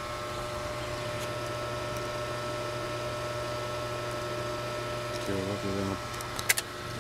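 Kenwood HF transceiver's loudspeaker giving steady 40-metre band static with a low hum while tuned to a lower-sideband voice channel, as the operator listens for a station's repeat. A short, faint voice comes through about five seconds in, and a sharp click follows near the end.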